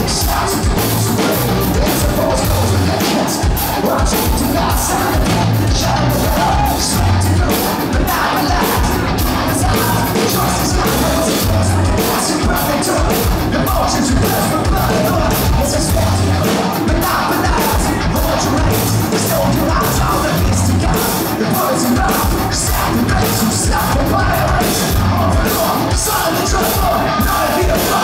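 Live hard rock band playing loud: bass guitar, electric guitar and drums keeping a fast steady beat, with shouted singing.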